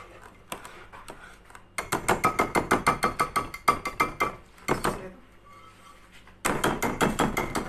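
A wire whisk beating thick cake batter in a ceramic bowl, its wires clicking against the bowl about seven times a second. The whisking comes in two bouts, with a pause in the middle.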